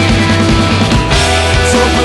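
Loud rock music with distorted guitars, bass and drums, a steady driving beat.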